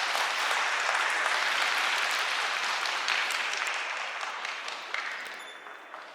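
Arena crowd applauding, a dense wash of clapping that holds steady and then dies away over the last couple of seconds.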